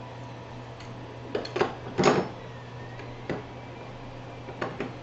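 A handful of short knocks and clunks from 3D printer parts being handled and set down on a wooden workbench, the loudest about two seconds in, over a steady low hum.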